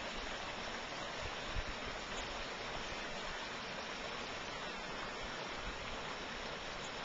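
Shallow creek water running steadily over rocks, an even rushing burble. A brief low thump about one and a half seconds in.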